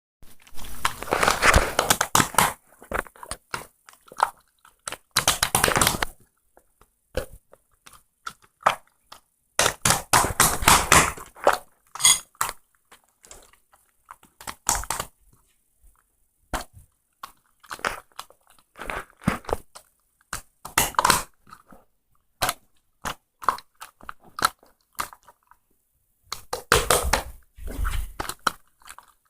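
Close-miked ASMR crunching and crinkling: irregular clusters of crackly noise and sharp clicks, stopping and starting with short pauses.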